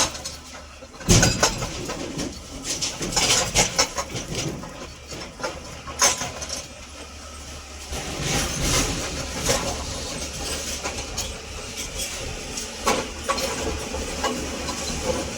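Heavy earthmoving machine's engine running with a steady low rumble, broken by repeated sharp knocks and clanks, the loudest about a second in.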